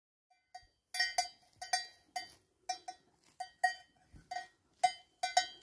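Bell on a cow clanking in an irregular rhythm, about two ringing metallic clangs a second, starting about half a second in.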